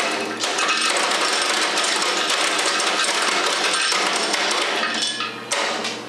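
Macadamia nut cracking machine running with a steady motor hum while nuts are fed into its hopper. The hard brown shells crack in a dense, rapid clatter of nuts and shell pieces, which thins out near the end.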